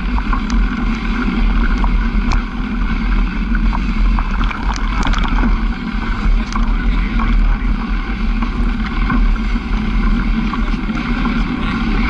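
A vehicle's engine running steadily while travelling over a rough dirt track, with wind buffeting the microphone and scattered knocks and rattles from the bumps.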